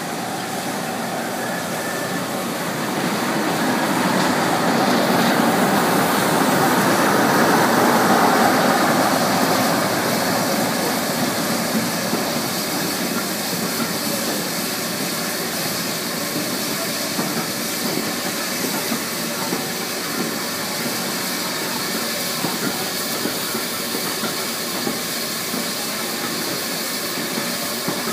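Brush Class 47 diesel-electric locomotive's Sulzer V12 engine running as it draws slowly into the platform, growing louder to a peak about eight seconds in as it passes, followed by its coaches rolling past. A steady steam hiss comes from a steam tank engine standing alongside.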